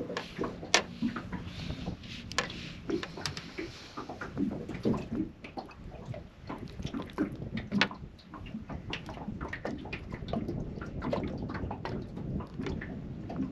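Fishing pliers and lure hooks clicking and knocking irregularly as a lure is worked free from a fish in a landing net, over a low wash of water lapping against the boat.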